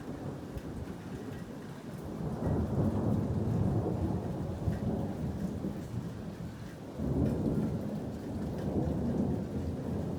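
Thunder rumbling twice over steady rain: a long roll that builds about two seconds in and slowly fades, then a second roll that starts suddenly about seven seconds in.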